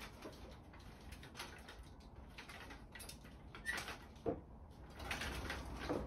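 Blanket fabric rustling as it is spread over the metal rod of a drying rack, with two brief squeaks a little past halfway.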